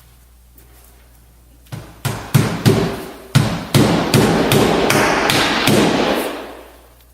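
Hammer driving nails to fasten roofing shingles: a quick run of about a dozen strikes, roughly three a second, starting a little under two seconds in.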